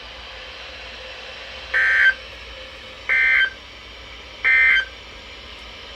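EAS end-of-message (EOM) data signal: three short bursts of warbling digital SAME tones, about 1.3 seconds apart, over faint radio hiss, marking the end of the alert message.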